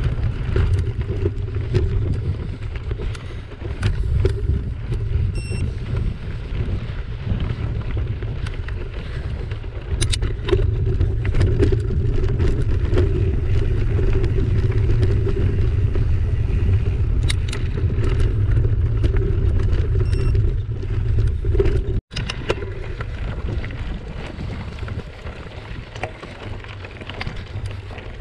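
Mountain bike climbing a rocky dirt singletrack: a steady low rumble of wind and trail vibration on the bike-mounted camera's microphone, with scattered clicks and rattles from tyres on gravel and the bike itself. The sound cuts out for an instant about three quarters of the way through and runs on quieter.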